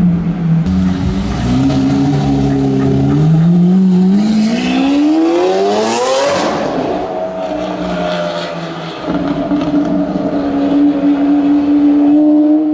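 Lamborghini Aventador's V12 engine accelerating: its pitch climbs steadily for about four seconds to a high rev, then drops back and holds a steady note.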